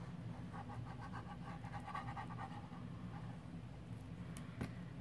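Fine-tip squeeze bottle of liquid craft glue being squeezed onto paper, the nozzle sputtering in a quick, even train of squeaky little pulses for about two seconds. Two light clicks follow near the end.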